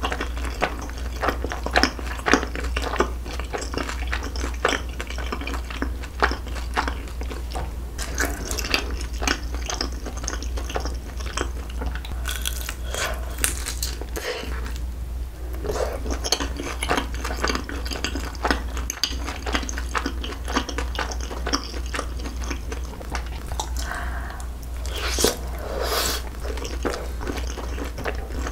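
Close-miked eating of a sotteok-sotteok skewer, sauce-coated rice cakes and sausage: biting and wet, sticky chewing with many small irregular mouth clicks. A steady low hum runs underneath.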